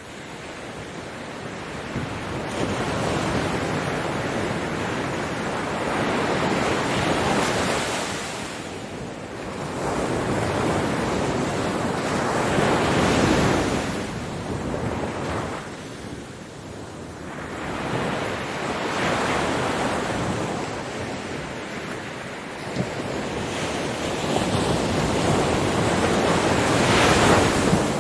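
Ocean surf: waves breaking and washing back in slow surges, four or five swells that build and fade, the loudest near the end.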